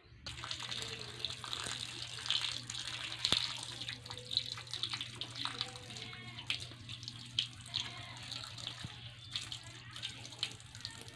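Water splashing and trickling as fish are cleaned and rinsed by hand at a concrete drain, with small scraping and splashing clicks throughout over a steady low hum.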